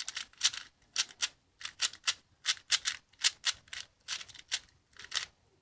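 A new 4x4 puzzle cube being turned, its layers clacking in quick clicks, often in pairs, about three or four a second. The cube has not been set up, only loosened a little, and its owner finds the turning not much good.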